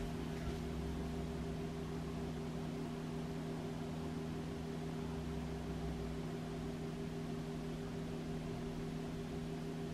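Steady hum of a running kitchen appliance or fan: a few constant low tones over a faint hiss. A deeper rumble beneath it fades about six seconds in.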